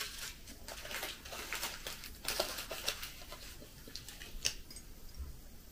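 Foil sweet wrapper crinkling as it is handled and smoothed out by hand: a run of sharp crackles that thins out near the end.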